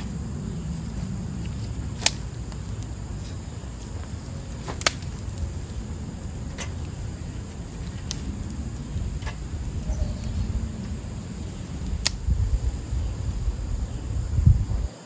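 Small fire of dogwood scrapings and leaves crackling, with a handful of sharp, scattered pops over a steady low rumble and a faint high insect drone.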